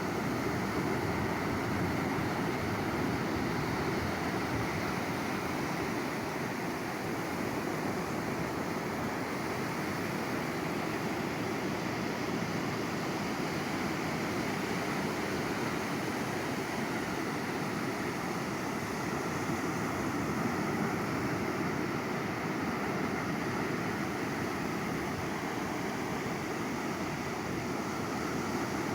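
Sea waves on the shore, an even, unbroken rushing of surf with no distinct single breakers.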